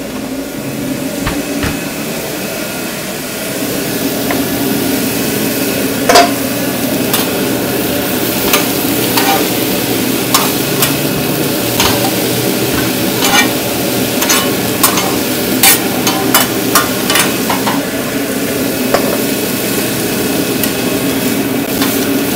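Steak frying on a hot griddle with a steady sizzle. From about six seconds in, a metal cooking utensil clicks and taps sharply against the cooking surface again and again.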